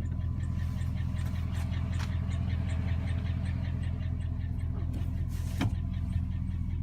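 2007 Chevrolet Silverado 1500 engine idling with a fast, even ticking over its steady drone, the tick of what the seller calls bad lifters with no oil pressure. A couple of brief louder clicks come about two seconds in and near the end.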